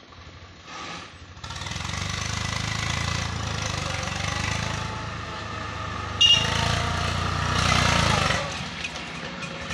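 Swaraj 855 FE tractor's diesel engine working under the weight of a fully loaded soil trolley, getting loud about a second and a half in and easing off near the end. A short, sharp, high-pitched sound about six seconds in is the loudest moment.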